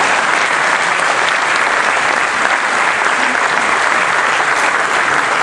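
Audience applauding, a steady, loud clapping throughout.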